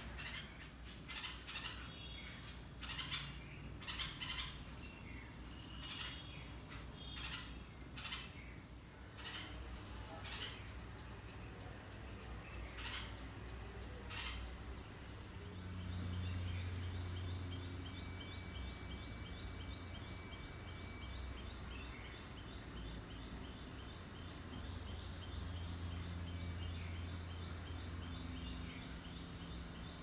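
Red-vented bulbul nestlings begging with short, high chirping calls in irregular bursts. About halfway through the calls stop and a fast, even run of faint high ticks takes over, with a low steady hum underneath.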